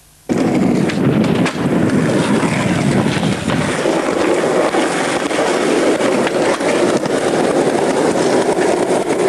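Skateboard wheels rolling on concrete: a steady loud rumble that cuts in suddenly, with a few sharp clacks of the board.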